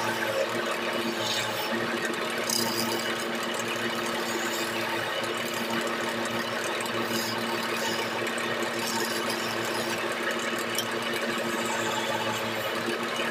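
Wood lathe running with a steady motor hum while a hand-held turning chisel cuts the spinning gamari-wood stair post, giving a scraping hiss with short sharper scratches here and there as the tool bites.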